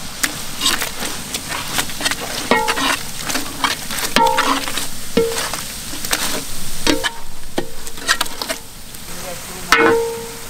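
A metal ladle stirs and scrapes through a large metal pan of onion-tomato masala frying in oil, over a steady sizzle. Several sharper knocks of the ladle against the pan leave a short metallic ring.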